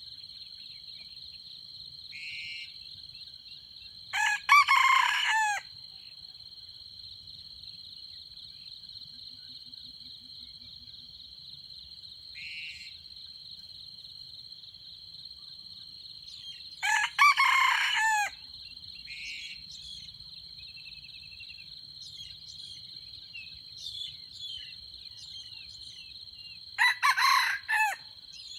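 Red junglefowl rooster crowing three times, each crow short and clipped at about a second and a half, roughly ten seconds apart. A steady high insect drone runs underneath.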